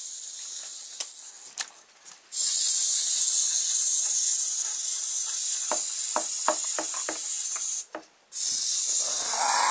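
Clockwork wind-up motor of a plastic toy Tyrannosaurus rex whirring with a steady high hiss as the toy walks, with a run of light clicks from its plastic legs and feet on the table in the middle.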